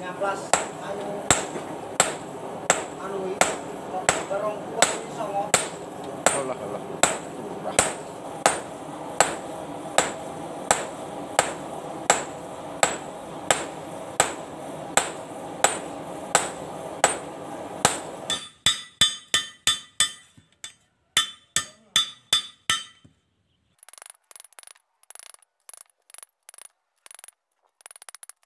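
Hand hammer forging a golok blade of bearing steel on an anvil: steady, evenly spaced blows about two and a half a second over a continuous background noise. About two-thirds of the way through the background noise stops and the blows turn to quicker, lighter, ringing taps, followed after a brief pause by faint metallic clinks.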